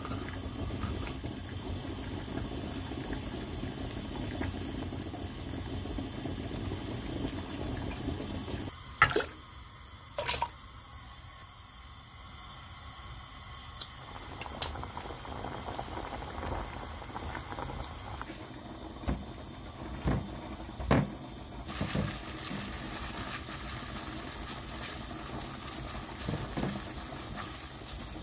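Water sounds from a pot of sliced potatoes in water on the stove, broken by a handful of sharp knocks. For the last several seconds there is a brighter crackling hiss as crumbled boiled egg is mashed by hand in a glass bowl.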